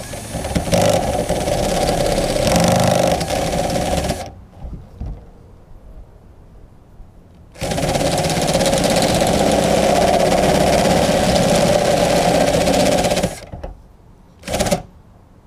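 Cordless drill with a step drill bit enlarging a half-inch pilot hole to 9/16 inch in the van's sheet-metal roof. It runs steadily for about four seconds, stops, runs again for about six seconds, then gives one short burst near the end.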